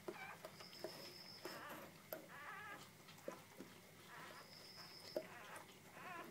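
Faint squeaks and whimpers of young Border Collie puppies, with a few soft clicks as they shuffle.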